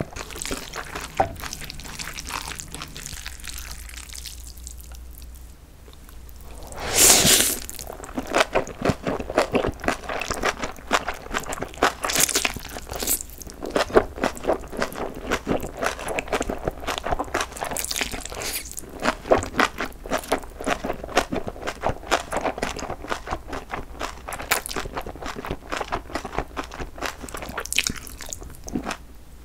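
Close-miked eating of spicy cold jjolmyeon noodles: wet chewing with crunching, a loud slurp of noodles about a quarter of the way in, then steady chewing broken by several shorter slurps.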